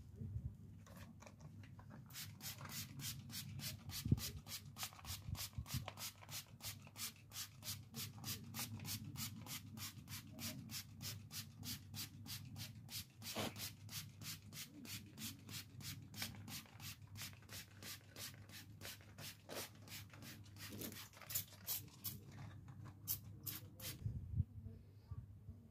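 Hand trigger sprayer on a bottle of Turtle Wax Extreme Prewash, pumped quickly over and over to mist prewash into a car's wheel arch. It makes a run of short hissing squirts, about two to three a second, starting about two seconds in and stopping a little before the end.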